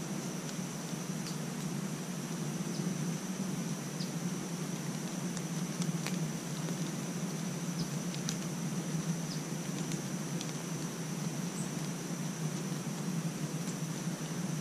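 Woodland ambience: a steady hiss with a constant high-pitched whine over it and a scattered few faint ticks.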